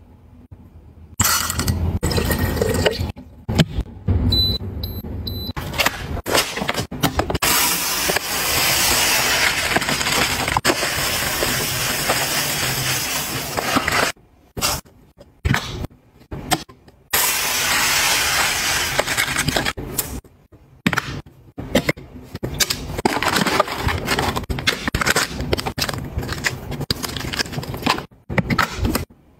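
Dry rice and beans poured from plastic bags into clear plastic storage bins in several long pours, each a steady rushing rattle of grains. Plastic packaging crinkles between the pours.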